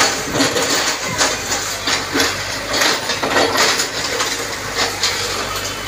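Caterpillar backhoe loader's diesel engine running while its bucket knocks down brick walls: irregular crashes and clatter of falling bricks and masonry over a steady engine hum.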